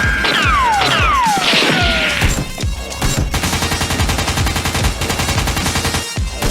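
Rapid automatic-gunfire sound effects over background music. In the first two seconds several whistling tones glide downward and a short rush of noise follows; then a long, even burst of rapid shots.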